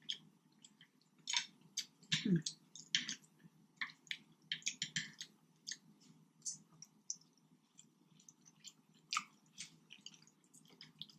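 Close-miked eating: wet chewing with irregular lip smacks and mouth clicks.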